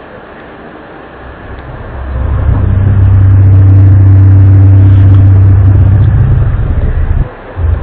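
A loud, steady low drone with a few overtones, swelling up over about a second and a half, then held, and breaking off briefly near the end before resuming: the kind of unexplained hum circulated as a 'strange sound in the sky'.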